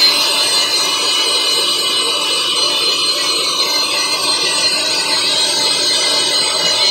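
Philco electric stand mixer running steadily, its wire whisk beating cake batter in the bowl, with a steady motor whine.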